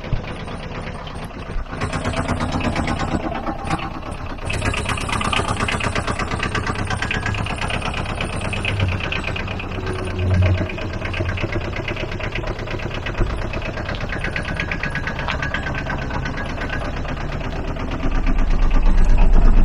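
Aixam Mega Multitruck's small Kubota two-cylinder diesel engine idling with a steady, even clatter. A louder, deeper rumble comes in near the end.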